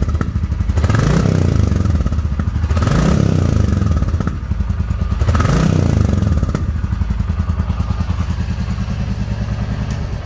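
Royal Enfield Classic 350's single-cylinder engine running through its stock silencer, idling with a steady exhaust thump and revved in three quick throttle blips, about one, three and five and a half seconds in, each falling back to idle. Little engine noise, mostly exhaust thump.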